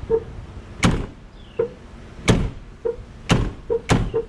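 A run of about five sharp knocks or clunks, roughly a second apart, with short squeaks between them.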